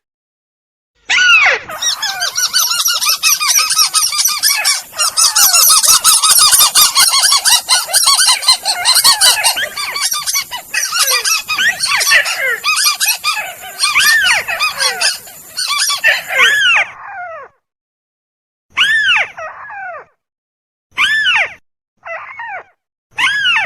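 Bird-lure recording of tikusan (crake) calls: many harsh, arching call notes overlapping densely over a high hiss, then a short break and a few single calls spaced about two seconds apart.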